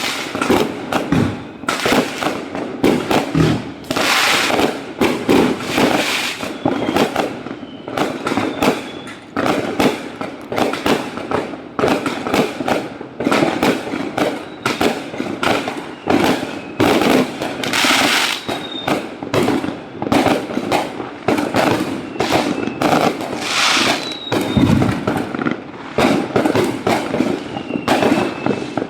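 Fireworks going off in a dense, continuous barrage of bangs and crackling, with a few short whistles heard now and then.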